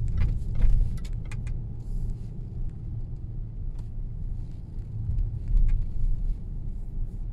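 Car driving slowly, heard from inside the cabin: a steady low engine and road rumble, with a few light clicks and knocks in the first second or so.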